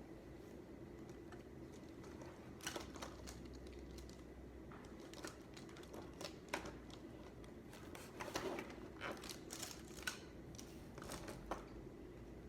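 Scattered light clicks and taps of desk work while studying, coming in small clusters, over a faint steady hum.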